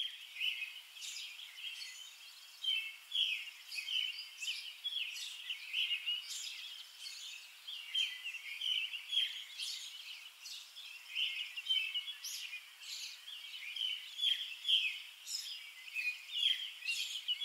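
Birds chirping and calling, many short calls overlapping in a steady, busy stream.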